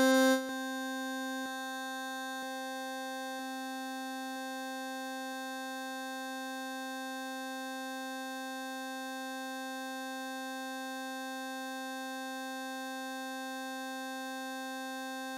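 VCV Rack software modular synthesizer holding one steady, buzzy note near middle C with many overtones. It drops in level about half a second in, with faint clicks about once a second over the first few seconds.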